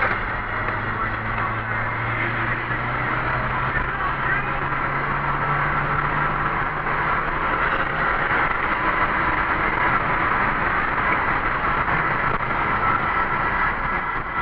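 Steady driving noise of a car heard from inside the cabin: road and wind noise with a low engine hum underneath.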